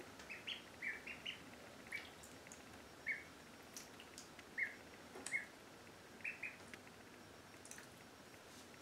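Indian Runner ducklings peeping: about a dozen short, high peeps, irregularly spaced and some in quick pairs, with a few faint clicks between them.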